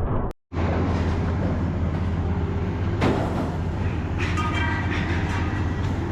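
A steady low mechanical rumble with rattling noise, a sharp clank about three seconds in, and a few high metallic squeals or rings a little later.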